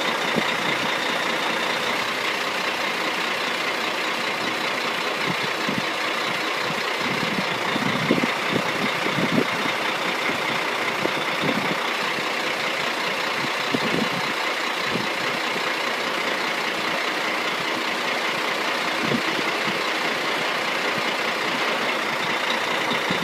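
A crane truck's engine running steadily, with a few short knocks now and then.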